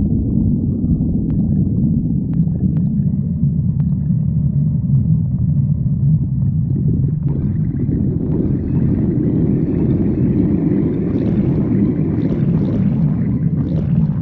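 Stomach growling: a continuous low rumble, with a brighter gurgling layer joining about eight seconds in and stopping abruptly at the end.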